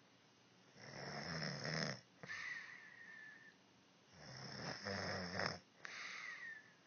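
A woman snoring in her sleep: two rattling snores on the in-breath, each followed by a thin whistle on the out-breath that falls in pitch.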